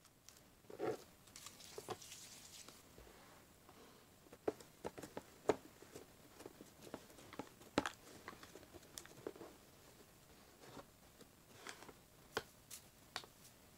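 Sticky gold-leaf glitter slime being stretched, folded and pressed by hand, giving small irregular wet clicks and pops, with a short squelch about a second in.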